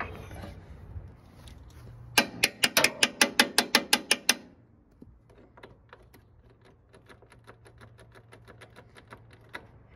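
Socket ratchet wrench clicking as it is worked on a bolt: a quick run of sharp clicks, about eight a second for about two seconds, then fainter, slower clicking.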